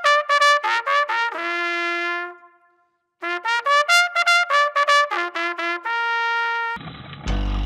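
Trumpet fanfare jingle: a quick run of notes ending on a long held note, a short pause, then the same phrase again. Near the end, backing music with a steady beat comes in.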